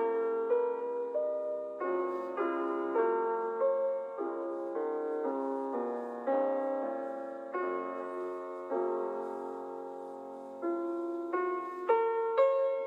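Background music: a gentle piano melody with chords, notes struck one after another at an easy pace and fading after each strike.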